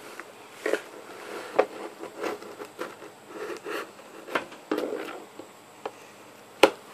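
Handling and opening a phone's cardboard retail box: scattered rustles, scrapes and small taps, with one sharper click near the end.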